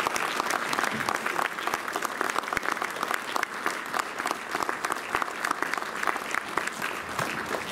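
Audience applauding, a steady dense stream of clapping.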